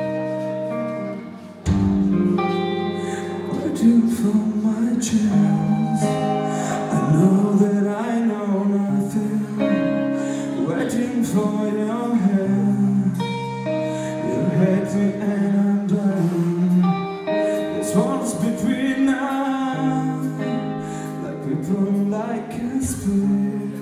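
Live band music: held electric guitar chords, then about two seconds in the full band kicks in and a male singer starts singing over it.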